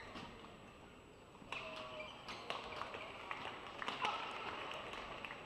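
A badminton racket strikes the shuttlecock near the start as the rally ends. About a second and a half in, crowd noise in the arena rises, with scattered sharp claps and calls.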